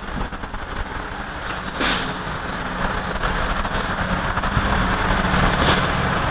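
Cloth eraser rubbing across a chalkboard as it is wiped clean, over a steady background noise, with two short knocks about two seconds and five and a half seconds in.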